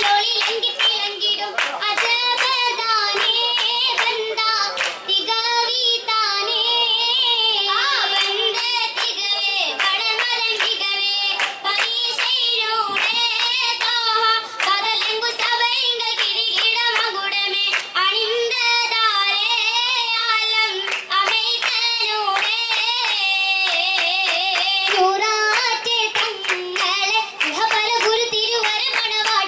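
Oppana: a group of girls' voices sing a Mappila song together, with sharp rhythmic hand claps from the dancers throughout.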